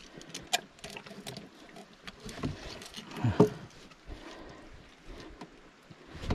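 Scattered knocks and water sounds from a small boat, with a few louder thumps about two and a half and three and a half seconds in.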